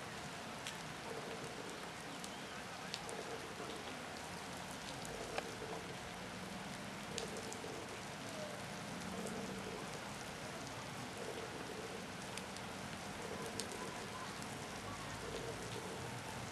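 Rain falling steadily, an even hiss with scattered drops clicking sharply on nearby surfaces.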